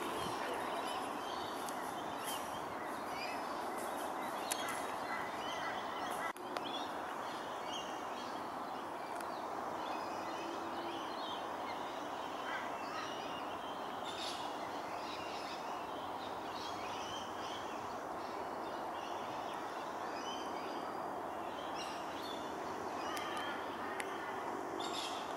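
Outdoor ambience: birds chirping and calling on and off over a steady background hiss.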